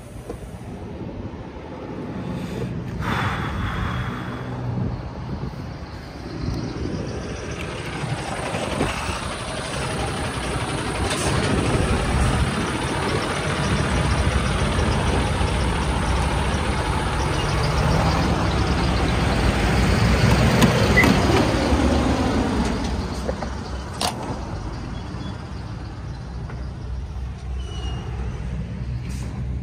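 Heavy truck's diesel engine running on the move, its road and engine noise building to a peak about twenty seconds in and then easing. A short hiss of air, like an air brake, comes about three seconds in.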